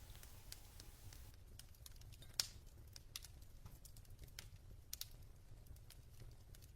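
Faint, irregular crackling and popping of a wood fire in a fireplace, over a low steady hum, with one sharper pop about two and a half seconds in.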